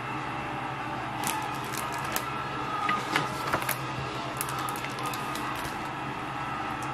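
Paper crackling and rustling as a picture book's page is turned, a run of crisp crackles in the middle, over a steady low hum.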